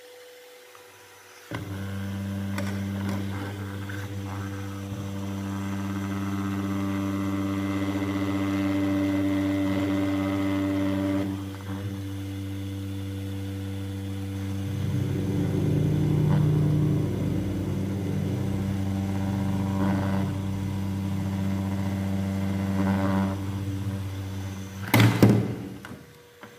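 A mini handheld fan switched on about a second and a half in, its small motor and blades running with a steady hum. Near the end a loud clatter as the fan's plastic parts are handled.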